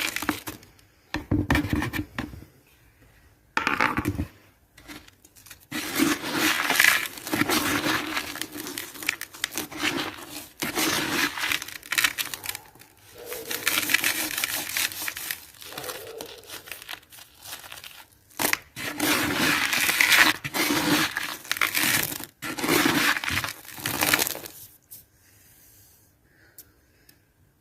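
Dry, gritty cement crumbling and crunching in repeated bursts with short pauses between them, dying away near the end.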